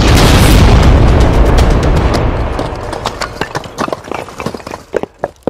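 Explosion sound effect: a sudden loud boom that rumbles for a couple of seconds, then dies away into scattered crackles and pops before cutting off near the end.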